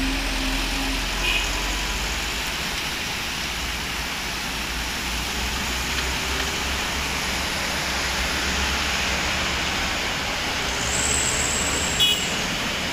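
Heavy rain hissing steadily, with the engines of trucks and cars and their tyres on the wet road running under it as a low rumble.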